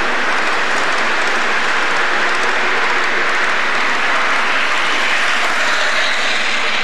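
O-scale model freight train rolling past close by: a steady, loud rushing rattle of its wheels on the rails.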